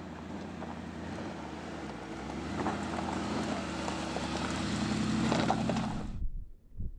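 2019 Mercedes-Benz G-Class creeping over a rocky off-road track: the engine runs low and steady while the tyres crunch over loose gravel and stones, growing louder, then the sound cuts off abruptly about six seconds in.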